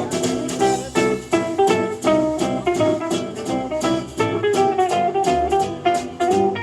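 Live acoustic string band playing an instrumental break in a bluesy swing tune: quick picked guitar notes over a low bass line with a steady beat.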